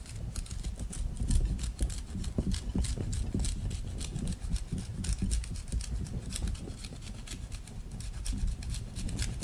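Block of Parmesan grated on a long, fine stainless-steel rasp grater: a quick, even run of short scraping strokes.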